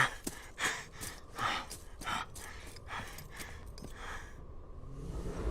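A man panting heavily in short, ragged gasping breaths, about two a second. The breaths stop about four seconds in, and a low rumble rises near the end.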